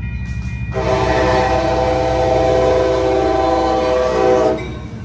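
The air horn of an EMD F59PHI diesel locomotive sounds one long, loud steady chord. It starts about a second in and cuts off shortly before the end, over the low steady rumble of the locomotive passing close by.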